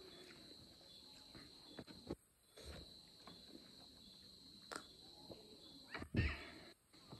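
Steady high chirring of crickets, with soft eating and handling sounds from a meal of rice and goat head eaten by hand. A gulp of water from a drinking glass comes in the middle, and a thump a little after 6 seconds, the loudest sound, as the glass is set down.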